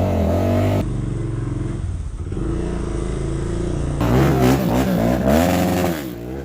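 Four-wheeler engines running and revving, the pitch rising and falling with the throttle. The sound changes abruptly twice, as separate clips are cut together.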